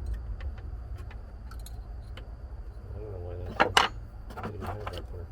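Light clicks and clinks of small metal parts being handled, with two sharper clinks about three and a half seconds in, over a steady low rumble.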